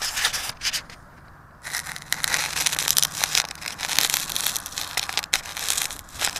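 Wind buffeting the built-in microphone of a small action camera, a rough, crackling rush in gusts that drops away briefly about a second in.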